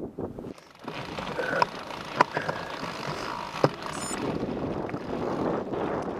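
Mountain bike ridden down a rocky dirt trail, heard from a bike- or helmet-mounted camera: a steady rumble of tyres and frame over loose stones that starts about a second in, with three sharp knocks as the bike jolts over rocks.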